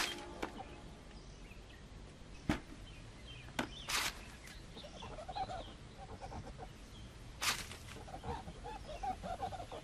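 Quiet outdoor ambience with birds calling in short chirps, broken by a few sharp clicks or taps.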